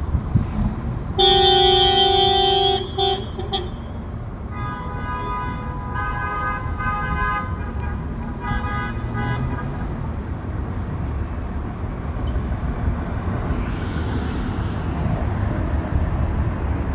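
Street traffic with a steady low rumble, cut by a loud vehicle horn blast about a second in that lasts under two seconds. A second, higher-pitched horn follows in several separate honks over the next few seconds.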